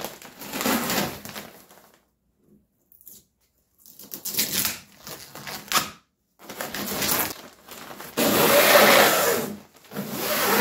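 Peel ply being ripped off cured fiberglass by hand: a series of tearing pulls with the rustle of the loose fabric between them. The loudest, longest rip comes near the end. The sound cuts out briefly twice.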